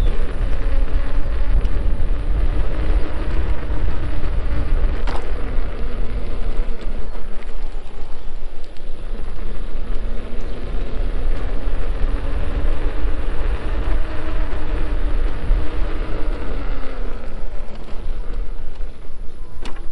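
Begode Hero electric unicycle riding on asphalt: a low tyre-and-wind rumble with the hub motor's whine rising and falling in pitch as the speed changes. A single sharp click comes about five seconds in.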